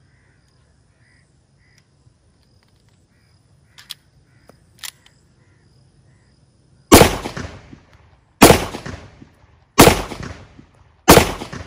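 Locally made 30 bore (7.62×25 mm) pistol firing four sharp, loud shots about a second and a half apart, each echoing away. They follow two light clicks.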